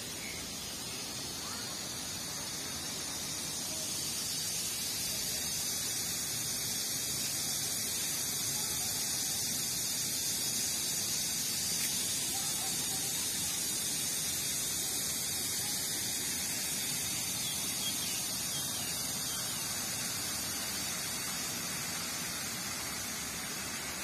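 Water flowing over rocks in a shallow stream, a steady rushing hiss that gets a little louder about four seconds in.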